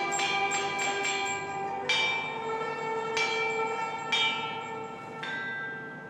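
Set of bronze chime bells struck one at a time, playing a melody. Several notes come in quick succession in the first two seconds, then single notes about a second apart, each ringing on and dying away.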